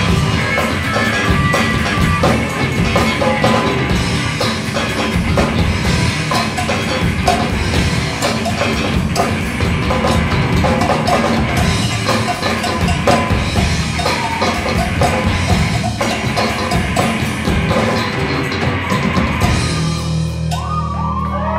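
Live rock band playing loud, with a full drum kit and electric guitars. About 20 seconds in, the drumming stops and a chord is left ringing.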